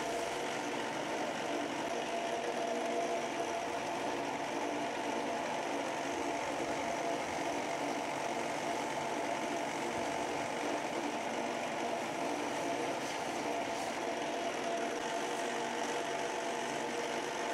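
4x36 belt sander running steadily, its abrasive belt grinding down a knife's epoxy resin handle.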